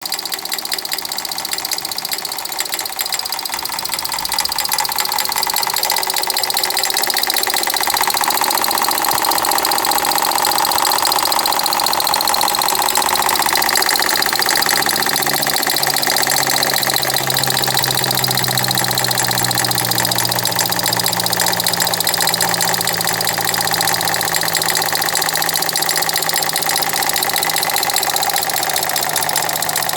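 2012 Ford Fiesta engine running with a fast, steady knocking. The knock is still there with a new water pump and belt, so neither is its cause. It gets louder over the first several seconds.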